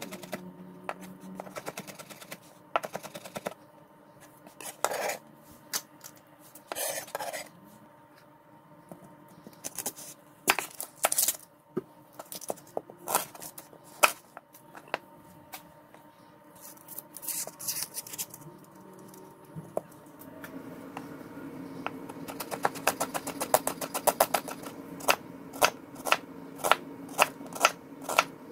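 Kitchen knife chopping vegetables on a cutting board: scattered knocks and clatter at first, then in the last several seconds a steady run of chops, about two a second.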